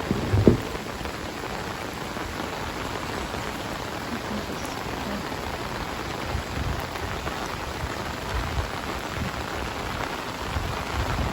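Heavy rain falling steadily, with a brief low thump about half a second in.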